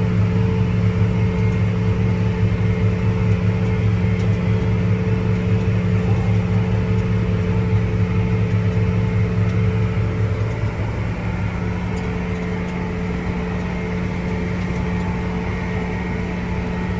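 Farm tractor engine running steadily under load, a constant drone that eases slightly about ten seconds in.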